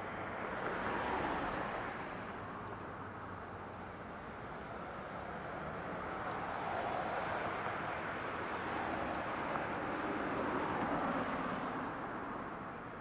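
Road traffic passing, tyre and engine noise swelling and fading three times as vehicles go by.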